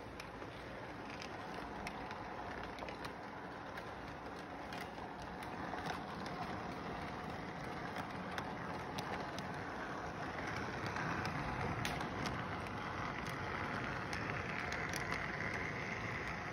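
Model train running on its track: a steady whirring rumble of wheels and motor, with scattered light clicks as the cars pass over rail joints. It grows louder in the second half.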